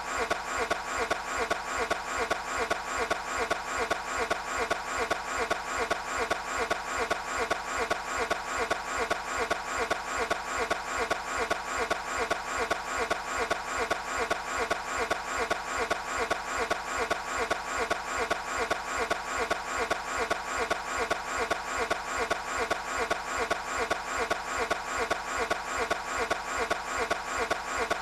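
Car engine cranking over on the starter without catching, an even, unbroken rhythm of compression pulses that never rises into running.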